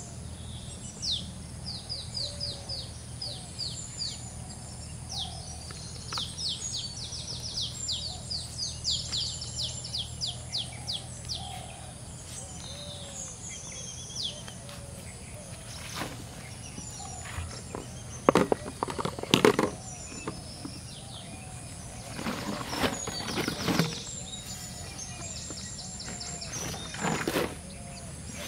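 Birds singing outdoors in bouts of quick, repeated high chirps, over a steady low background rumble. In the second half come several loud bursts of clattering and rustling as things are handled and set down on the grass: a plastic basin, a steel plate and a sack.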